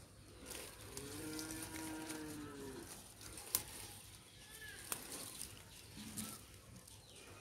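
A cow mooing once, faintly, in one drawn-out call of about two seconds that rises slightly and falls away. Two sharp clicks follow a second or two later.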